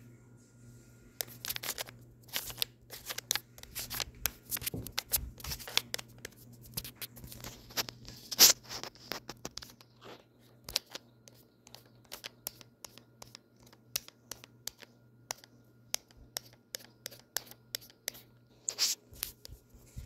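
Ceiling fan motor running on the floor with a steady low hum, overlaid by many irregular sharp clicks and scraping ticks, thickest in the first half and sparser later.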